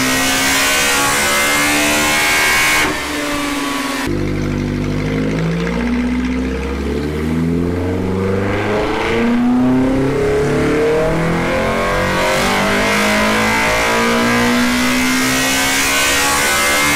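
Naturally aspirated Toyota 4A-GE four-cylinder with big cams and individual throttle bodies at wide-open throttle on a chassis dyno. One pull ends about three seconds in as the revs drop away. A new pull then climbs steadily through the rev range and reaches high revs near the end.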